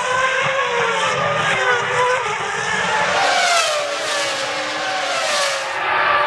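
Formula One cars' 3.0-litre V10 engines running at high revs, their pitch rising and falling with gear changes. About halfway through, several cars go by and their engine notes drop together.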